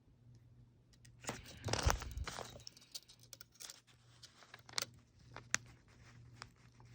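Handling noise of a pocket knife and measuring tool being moved about: a scraping, rustling stretch about a second in, followed by a few light, sharp clicks.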